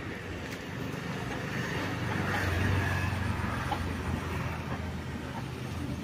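Low engine rumble of a passing motor vehicle, swelling about two to three seconds in and then easing off.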